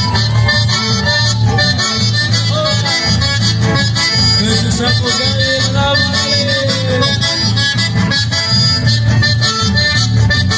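Live band dance music through loudspeakers: an accordion playing the melody over guitars and a steady low beat.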